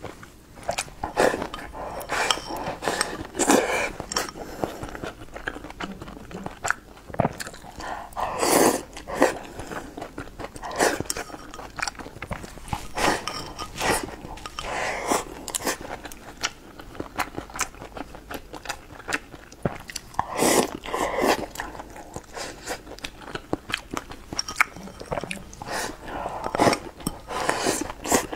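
Close-miked eating: wet chewing and smacking of mouthfuls of rice with tomato and egg, with sharp clicks of chopsticks against a ceramic bowl.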